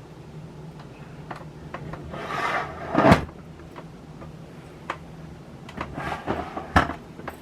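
Handling noises as a camera stand is moved and lowered: a scraping rub that builds to a loud knock about three seconds in, some small clicks, and another sharp knock near the end.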